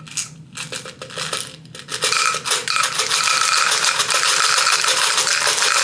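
Tic Tac mints clicking, then from about two seconds in a dense, continuous clatter as they pour into a pill bottle.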